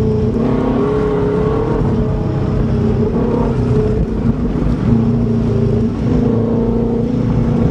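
Subaru Legacy's boxer engine pulling steadily while driving, its note holding fairly even with small rises and dips, over a low rumble of road and tyre noise.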